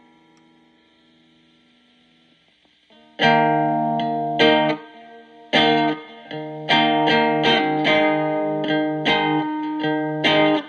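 Electric guitar played through a breadboarded Distortion+ circuit, its clipping diodes set by a diode substitution box. The last ringing chord fades out. About three seconds in, a series of loud chords starts, each cut off sharply, and the playing stops abruptly at the end.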